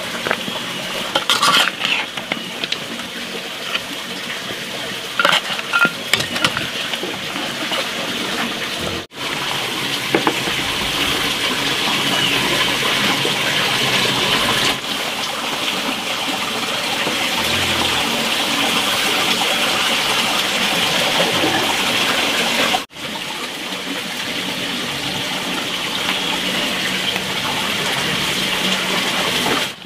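Steady hissing of sauce sizzling in a wok, with a few sharp clicks of a metal spoon against the pan in the first several seconds. The hiss drops out briefly twice, about nine and twenty-three seconds in.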